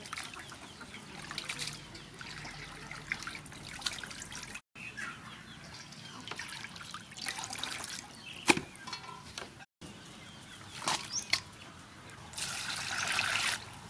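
Water dripping and sloshing as raw octopuses are handled and washed in a stainless steel bowl, with scattered small clicks and one sharp knock. A louder stretch of splashing water comes near the end, and the sound cuts out briefly twice.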